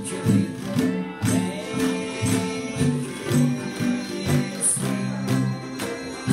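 Live acoustic music: a small acoustic string instrument strummed in a steady rhythm, with held melody notes over the strumming.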